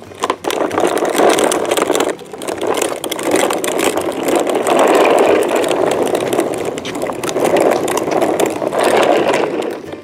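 Plastic toy garbage truck's wheels rolling and crunching over dirt and grit on pavement: a steady grinding noise with many small clicks, dipping briefly about two seconds in.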